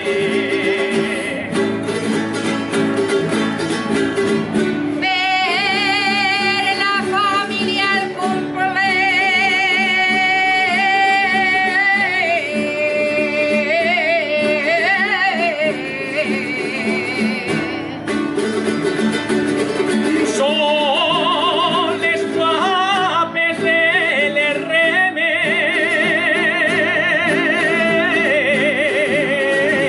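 Valencian albaes: a high solo voice sings long, heavily ornamented phrases with wide vibrato, over a plucked-string accompaniment. There is a short break in the singing about eighteen seconds in, then another phrase begins.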